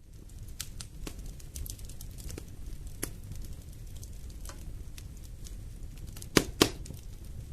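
Wood fire crackling in a fireplace: scattered sharp pops and snaps over a low, steady rumble of flames. Two loud pops come close together near the end. The sound fades in from silence at the very start.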